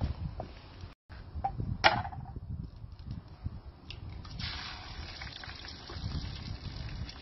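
An egg cracked on the rim of a frying pan, a sharp tap about two seconds in, then a steady hiss from about halfway as it fries in the sun-heated pan, over wind rumbling on the microphone.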